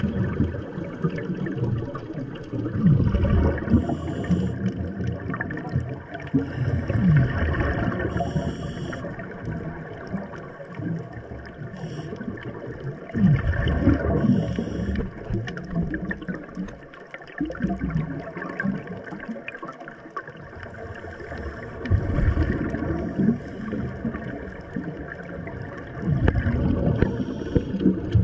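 Bubbling and gurgling of scuba divers' exhaled breath through their regulators, recorded underwater. It swells in surges every few seconds, with a few short hisses in between.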